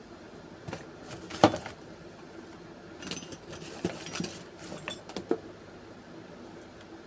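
Small objects handled close to the microphone: one sharp knock about a second and a half in, then a run of light clicks and rustles lasting about two seconds.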